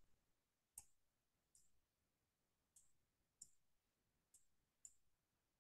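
Near silence broken by about six faint, sharp clicks spread irregularly over five seconds, the first the clearest, made while a word is hand-drawn onto an on-screen document.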